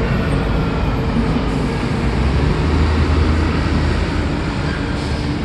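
Heavy road traffic with container trucks: a steady roar of passing vehicles, with a deep engine rumble swelling about two seconds in and easing off a couple of seconds later as a heavy truck goes by.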